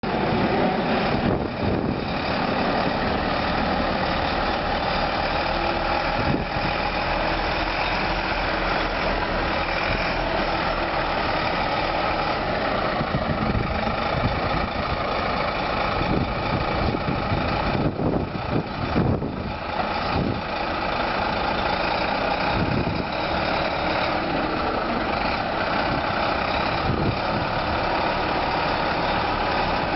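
Diesel engine of a long-nose Iveco truck tractor unit running steadily at low revs as the unladen tractor drives slowly around a yard.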